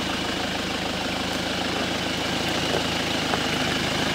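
Toyota 4x4's engine running steadily as the truck crawls forward over rocky ground.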